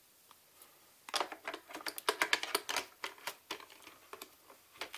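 Plastic parts of a Xiaomi Mi robot vacuum being handled: a rapid, irregular run of sharp clicks and rattles that starts about a second in.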